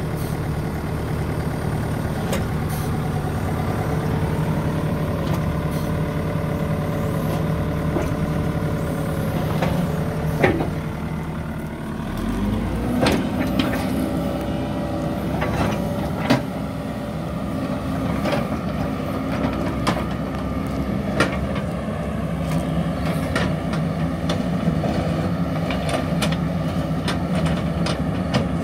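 2012 John Deere 85D excavator's diesel engine running steadily while the machine is operated. The engine note dips and climbs again about twelve seconds in, and sharp metallic clanks come now and then.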